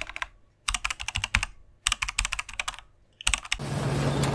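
Computer keyboard typing sound effect: runs of rapid key clicks broken by three short pauses. Near the end the clicks stop and room noise comes in.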